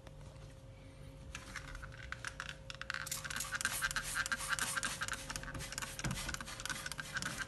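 Toothbrush scrubbing a plastic washing-machine detergent drawer, rapid scratchy back-and-forth strokes starting about a second in and growing louder a couple of seconds later.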